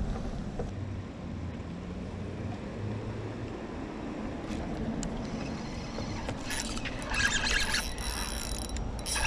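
Tsunami Shield 3000 spinning reel whirring in bursts from about six and a half seconds in, as a hooked fish pulls on the bent rod. Under it is a low, steady background of wind and water.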